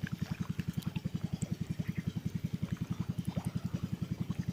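Small engine running steadily with a rapid, even chugging of about twelve beats a second.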